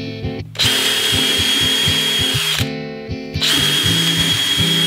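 Cordless drill running at full speed into a piece of Douglas fir, in two runs of about two seconds each with a steady high whine. Background music plays underneath.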